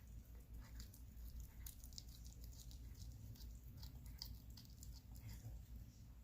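A cat chewing on a small bird: faint, irregular crunching clicks over a low hum.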